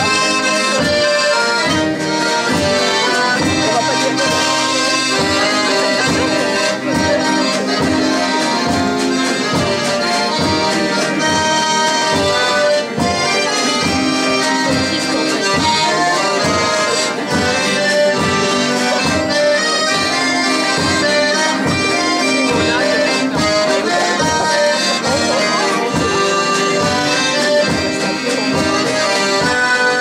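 Accordion playing a tune in band music, over a steady beat of about two pulses a second.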